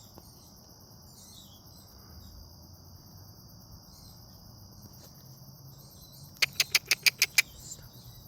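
An unidentified animal's call: seven loud, sharp notes in quick succession about six and a half seconds in, over a steady high chirring of insects.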